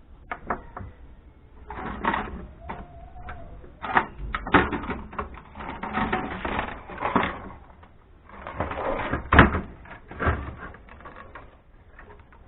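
Screws being undone and the metal chassis and circuit board of a scrap amplifier being handled: irregular clicks, rattles and scrapes, with a short squeak about three seconds in.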